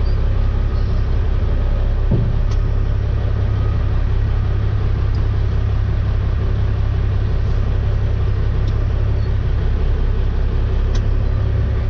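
Dump truck's diesel engine running steadily: a deep, even rumble heard from inside the cab, with a few faint ticks.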